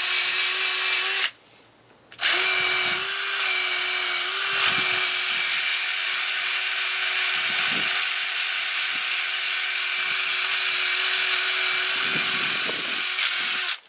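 Cordless DeWalt drill spinning a wire brush against the rusty steel of a steering knuckle, scrubbing off rust and scale: a steady motor whine under gritty scraping. It stops about a second in, starts again a second later, and stops near the end.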